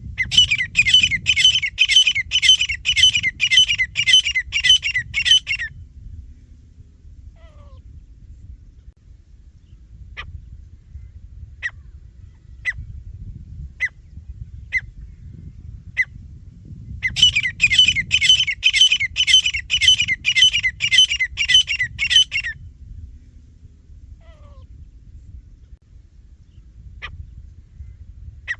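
Francolin (teetar) calling: two long bouts of loud, harsh, rapidly repeated notes, about two to three a second, one at the start and one in the middle. Between the bouts come single short call notes about once a second, over a steady low background rumble.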